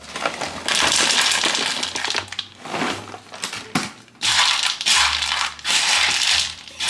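Reese's Puffs cereal poured from its box into a bowl: a loud, dry rattling hiss of pieces falling, in two long pours with a few separate clicks between them.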